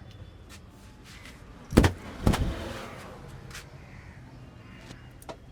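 Two sharp smacks about half a second apart, the second trailing off briefly, over a steady low background rumble with a few faint clicks.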